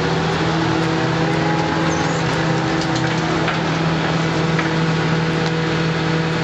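Rear-loading garbage truck's engine and rear compactor running, a steady pitched drone with a noisy mechanical hum and no change in speed.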